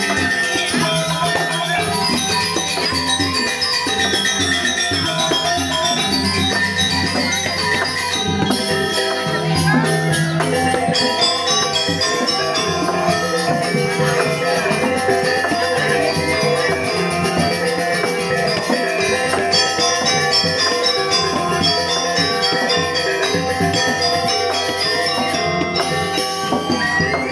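Balinese gamelan music, with many ringing metal keys and gongs playing a dense, steady pattern.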